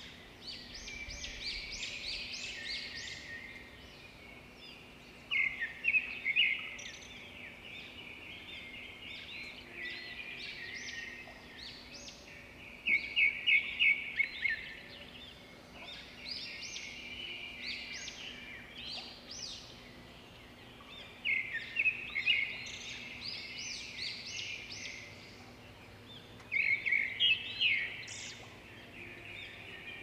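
A flock of birds calling: quick runs of short, high calls come in louder bursts every five to eight seconds, with softer scattered calls between.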